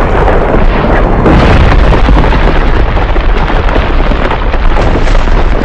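Loud, dense battle sound effects: explosions and bursts piled close together over a deep rumble, with many sharp cracks.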